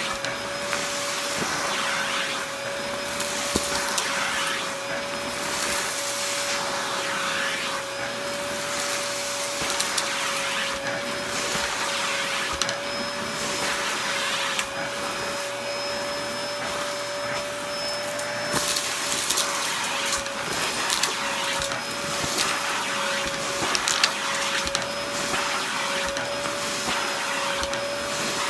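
Vacuum cleaner running steadily with a constant whine, its floor head working over a shaggy rug, with scattered sharp crackles and rattles as dirt and crumbs are sucked up the wand.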